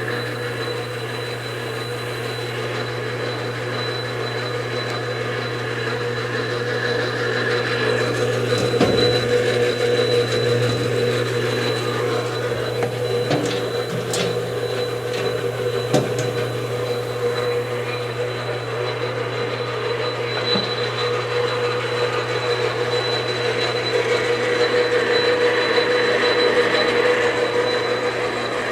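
Enco 12" x 36" gap-bed engine lathe running under power: a steady motor hum and gear whine, with a few clicks and knocks in the middle as levers and gears are shifted.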